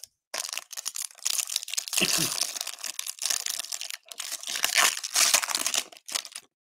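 Foil wrapper of a Panini Select football card pack crinkling and tearing as it is ripped open by hand, in uneven scrunches with a brief break about four seconds in.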